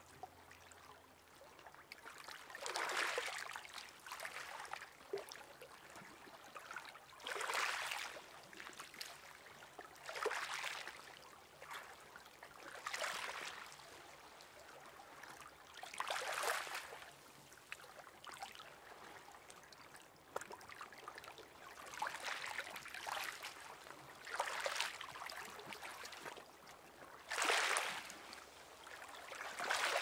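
Gentle sea waves lapping at a pebble beach: a soft wash that swells and fades every three to five seconds, about eight times.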